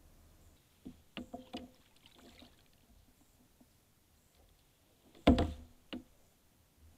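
Knocks and clatter against a plastic fishing kayak's hull as a bass is grabbed and lifted out of the water beside it, with a few light knocks about a second in and the loudest sharp thump a little after five seconds.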